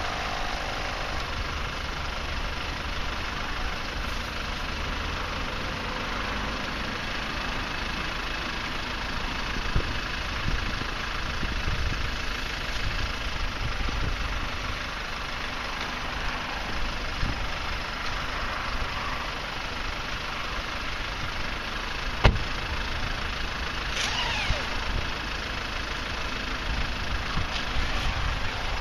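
Twin 12V electric air compressors running steadily, pumping up the air beams of an inflatable tent. One sharp knock about two-thirds of the way through.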